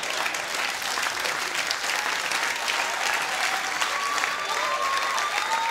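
Theatre audience applauding, a dense steady patter of many hands clapping, with a few high calls from the crowd rising over it in the second half.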